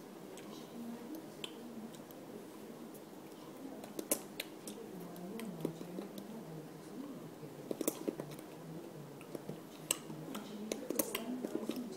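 Hands clapping, tapping and brushing against each other and the shirt while signing, giving scattered sharp clicks and slaps. A faint wavering voice-like hum runs underneath.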